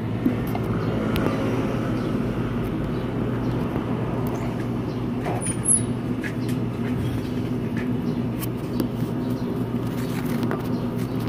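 A steady low machine hum at an even level, with a few light clicks over it.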